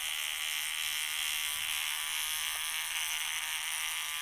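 Battery-powered electric rubber-tapping knife running steadily with a high buzz as its blade shaves a strip of bark from a rubber tree.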